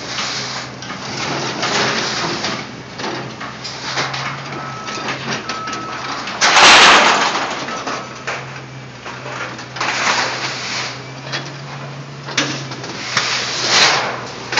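Caterpillar 318C excavator's diesel engine running with a steady hum while its bucket grabs and drops scrap metal, with repeated clanking and crashing of metal. A loud crash comes about halfway through.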